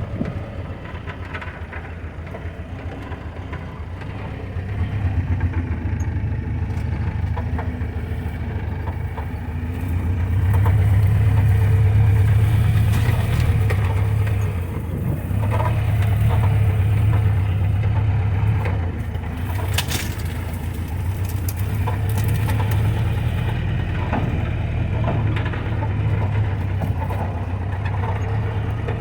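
Old Jeep's engine running as it drives off-road, a steady low drone that swells about ten seconds in, with scattered knocks and crunches from brush and rocks under the vehicle.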